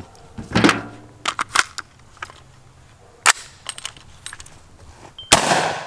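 A short-barreled AR-style pistol being handled, with sharp metallic clicks and clacks of its action, then one loud gunshot near the end.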